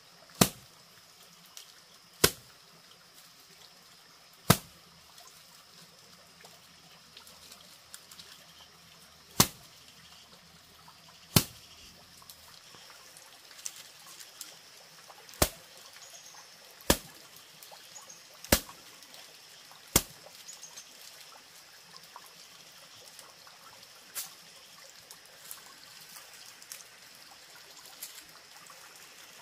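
Sharp knocks, about nine loud ones at irregular intervals of one to five seconds with a few fainter ones, over a faint trickle of water.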